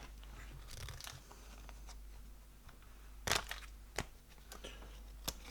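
Paper trading cards being handled and flipped through: faint rustling with a few sharp light clicks in the second half as cards are moved against each other.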